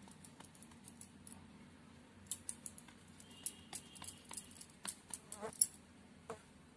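Faint, light clicks and taps of fingers pressing and folding a rolled paratha on a marble rolling board, coming several times a second from about two seconds in.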